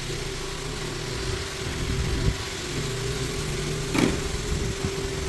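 Recoat Vibe floor-screening machine running steadily with a constant hum, abrading the old finish on hardwood floors ahead of a recoat. A brief sharp sound about four seconds in.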